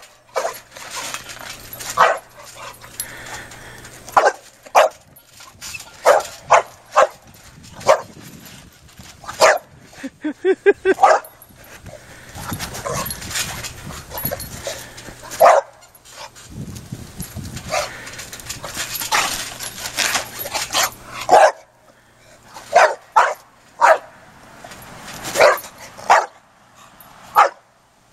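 English bulldog puppy barking: many short, sharp barks at irregular intervals, with a rapid string of barks about ten seconds in.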